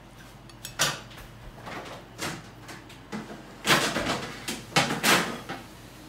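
Knife and fork scraping and clinking against a ceramic plate as food is cut: about five short, sharp strokes, the loudest in the second half.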